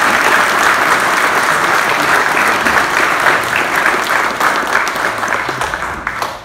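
Audience applauding: dense, steady hand-clapping that dies down over the last couple of seconds.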